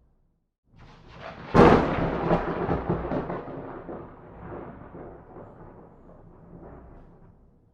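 A thunderclap: it builds up, then cracks sharply about a second and a half in, and rolls on as a rumble that fades away over the next several seconds.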